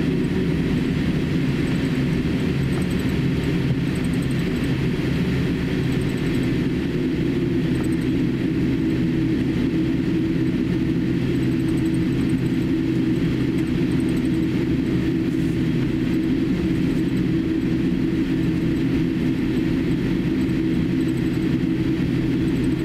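Cabin noise of a Boeing 787-8 taxiing: a steady low hum from its GEnx engines at taxi power, with a rushing hiss. A low droning tone strengthens a little about halfway through.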